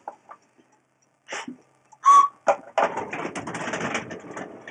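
A short single blast on a hand whistle about two seconds in, then a steady rattling clatter of a model train running off along the track.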